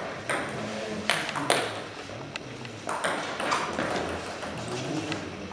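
Table tennis rally: the celluloid-type ball clicks off the table and the players' rubber-faced bats in an irregular series of sharp ticks.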